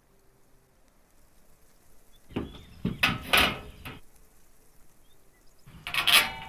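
Steel tubing of a cleaning-table frame clanking and rattling as the pieces are handled and fitted together, in two bursts of knocks with a metallic ring, one a couple of seconds in and another near the end.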